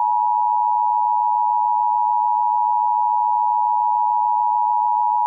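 Emergency Alert System attention signal: a steady two-tone alert tone (853 and 960 Hz sine waves sounded together), held unbroken, the signal that an emergency alert message is about to follow.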